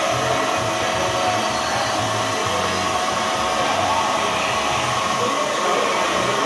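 Berco crankshaft grinder running: a steady, even whir of the machine's motor and grinding wheel, with a faint held tone over it.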